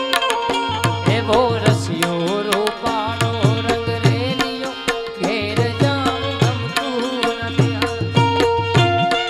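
Live Gujarati devotional folk music: tabla keeps a steady beat under a melody line that slides up and down in places, with held harmonium and keyboard tones.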